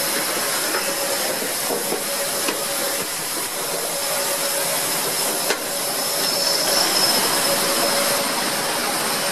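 Jet airliner noise on the apron from a parked Airbus A330: a steady rushing hiss with a thin, steady whine. A single click about halfway through.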